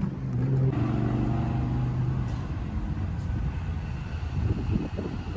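Car engine and road noise: a steady, even engine hum for the first couple of seconds, then a rumbling noise that slowly fades.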